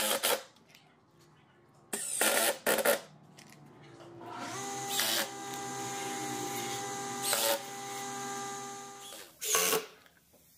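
Cordless drill in a few short trigger bursts, then running steadily for about five seconds as it drives into the sled's wooden fence, with another short burst near the end.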